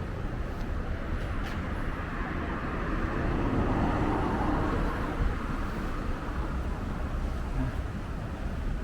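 Road traffic noise, a steady hum of passing cars that grows louder for a couple of seconds in the middle, as a vehicle goes by.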